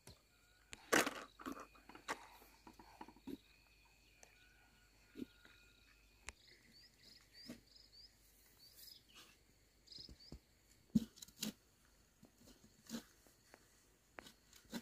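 Irregular thuds and scrapes of a long-handled digging tool being driven into dry soil, with the strongest strikes about a second in and twice near the 11-second mark. Faint bird chirps sound behind it, with a quick run of chirps midway.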